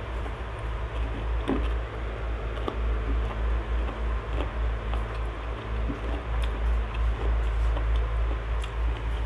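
Quiet sounds of a person eating by hand: faint scattered clicks of fingers against a plate and chewing, over a steady low hum.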